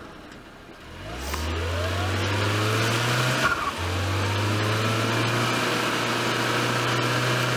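Mitsubishi Pajero Mini's engine revving hard under load, trying to drive out of deep mud. Its pitch climbs for about two seconds, breaks off for a moment, then holds steady at high revs.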